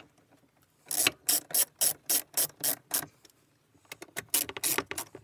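Ratchet wrench clicking in quick even strokes, about four a second, while tightening a 12mm bolt on the passenger airbag mount. There are two runs of clicks, one from about a second in and one starting near the end.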